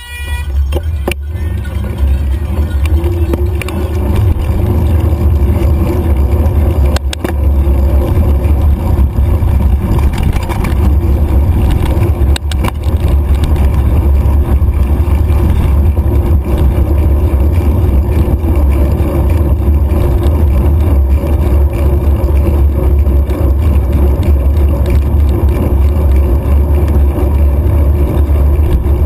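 Steady wind buffeting and rumble on the microphone of a handlebar-mounted action camera as a mountain bike sets off and rides along pavement and gravel, building up over the first couple of seconds. A few sharp knocks break through it.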